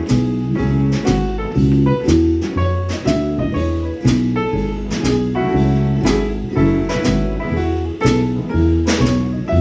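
Small jazz band playing an instrumental passage: a bass line that steps from note to note, chords above it, and a steady beat of about two drum strikes a second.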